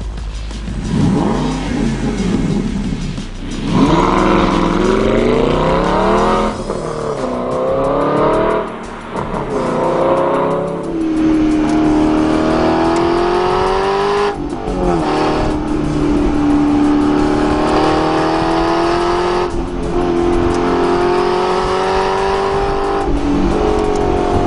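2012 Aston Martin V8 Vantage S Roadster's 4.7-litre V8 revving and pulling hard. Its note swings up and down in the first few seconds, then climbs steadily through the gears, with brief dips at the shifts.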